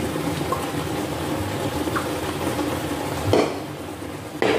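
Chicken sizzling steadily as it fries in an electric skillet, with two sharp knocks near the end, the second louder.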